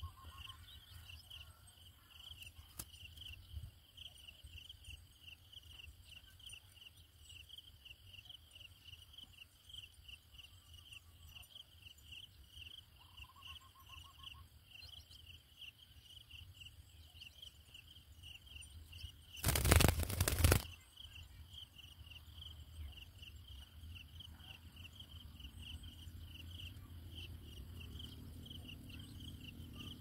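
Insects trilling steadily outdoors, a high pulsing trill that goes on without a break, over a low rumble. About twenty seconds in, a loud burst of noise lasting about a second covers everything.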